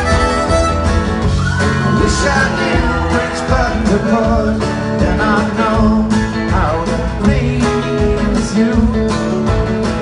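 Live band music: a fiddle over electric and acoustic guitars in an instrumental passage of a country-tinged rock song.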